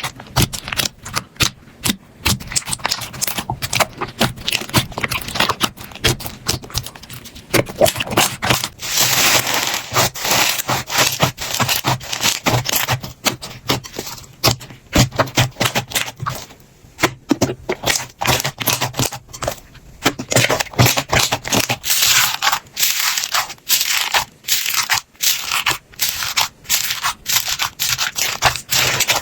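Slime being squeezed, pressed and poked by hand, giving dense, irregular crackling and popping clicks with some scraping and squishing in between.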